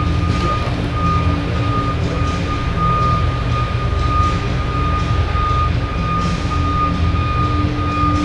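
Ice resurfacer's engine running steadily as the machine drives across the rink, a low rumble with a steady high-pitched whine over it.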